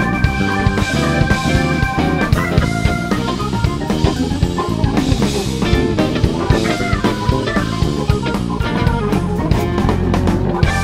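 Live instrumental jazz-rock from organ, electric guitar, electric bass and drum kit. The organ is a KeyB Duo Hammond-style organ. A held chord gives way about two seconds in to fast runs of notes over a steady drum beat.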